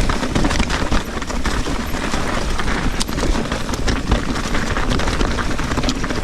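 Trek Fuel EX 7 full-suspension mountain bike clattering down a rough, rocky trail at speed: a dense, irregular rattle of tyres, chain and frame over rocks, over a steady low rumble of wind and ground noise.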